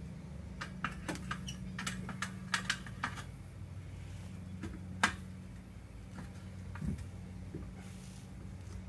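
Light, irregular clicks and taps, clustered in the first three seconds, with one sharper click about five seconds in, over a steady low hum.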